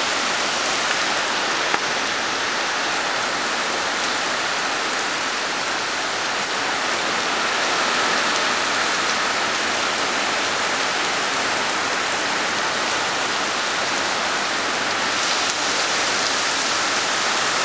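Heavy tropical-cyclone rain pouring steadily, with a faint high whine underneath that drifts slowly in pitch.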